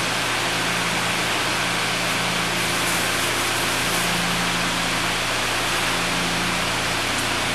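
Steady rushing air noise with a low motor hum, from a greenhouse circulation fan running.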